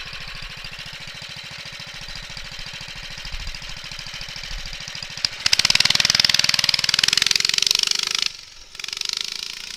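Small motorcycle engine running with an even firing beat, then revving up hard about five seconds in for roughly three seconds, dropping off sharply, and revving again briefly near the end.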